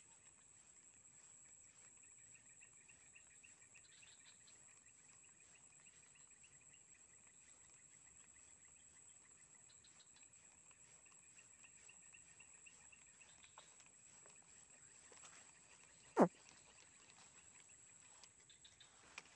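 Faint chorus of insects in marsh grass: a steady high buzz with a rapid pulsing trill beneath it and a few small chirps. About sixteen seconds in, a single sharp knock stands out as the loudest sound.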